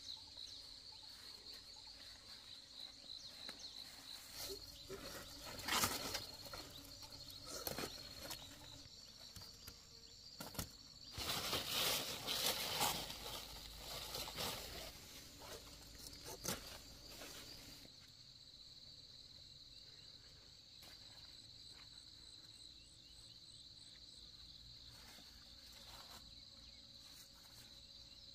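Insects trilling in one steady high note, with a few louder bursts of noise from something nearby, the loudest about twelve seconds in.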